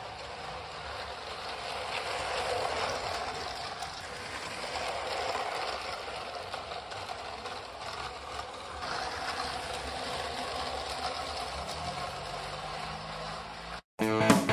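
Battery-powered Lego City trains running on plastic Lego track: the small electric motors run and the wheels rattle over the track, the noise swelling and easing as the trains come and go. Right at the end it cuts to guitar music.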